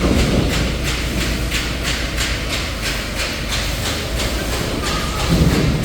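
Sheet-metal factory machinery running: a steady low hum with a regular ticking about three times a second.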